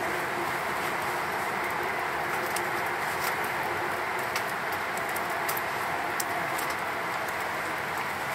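Wood fire crackling in a fire stand, with scattered sharp pops, over a steady rushing background noise.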